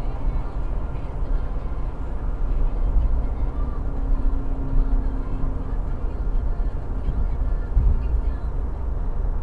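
Car driving at motorway speed: a steady low rumble of road and engine noise heard inside the cabin.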